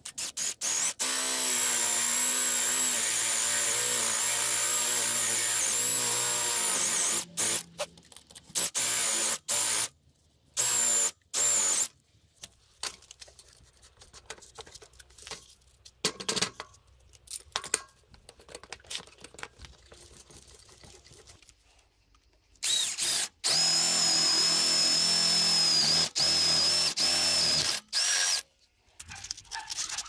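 Electric drill running: one long steady run with a high whine, then a string of short trigger bursts, then another long run near the end. Softer, irregular work noises fill the gap between.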